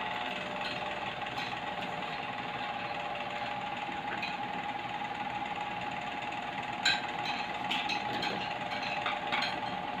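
A small motor hum with a faint steady whine, unchanging throughout, and a sharp click of plastic toy cookware being handled about seven seconds in, followed by a few faint taps.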